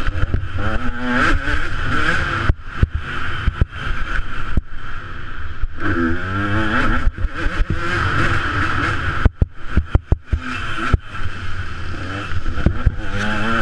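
Motocross bike engine revving hard and easing off as it is ridden around a dirt track, its pitch sweeping up as it accelerates out of turns, heard from a helmet-mounted camera with wind on the microphone. The sound cuts out briefly a few times around ten seconds in.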